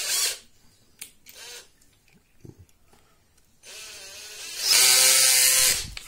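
Cordless drill-driver running in two short bursts, a brief one at the start and a run of about two seconds near the end with a steady whine, backing out the last self-tapping screw that holds a washing machine's drain pump.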